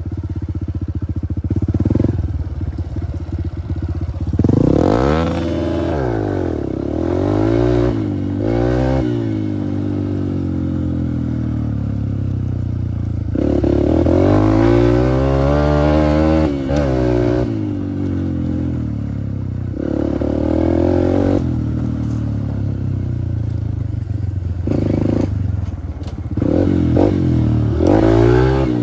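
Honda dirt bike's single-cylinder engine being ridden hard, its pitch climbing and dropping back again and again as the throttle is opened and closed.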